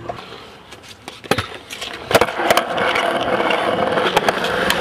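Stunt scooter wheels rolling on a concrete skatepark surface. A few sharp clacks come in the first two seconds, the loudest about two seconds in, then a loud, steady rolling rumble.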